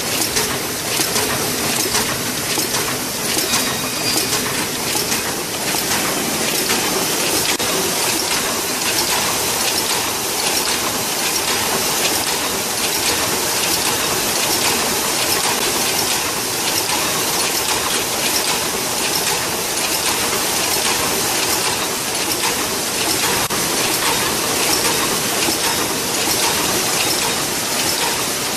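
AHD-50 paper cup forming machine running: a steady, dense mechanical clatter of rapid clicks and rattles as its turrets index and form the cups.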